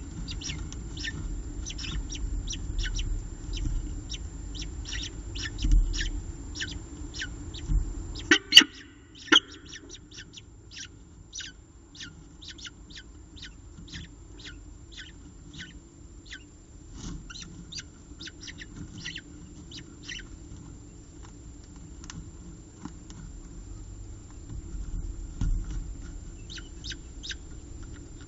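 Peregrine falcon eyases cheeping: a long run of short, high chirps, two or three a second, as the downy chicks beg while being fed. A low rumble lies under the first third and drops away after a couple of sharp knocks.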